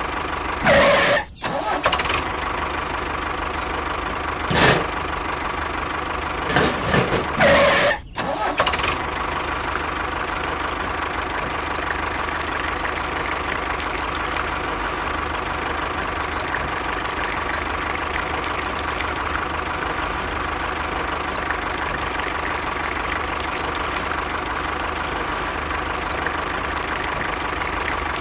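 Tractor engine running steadily, with a few short louder bursts in the first eight or nine seconds.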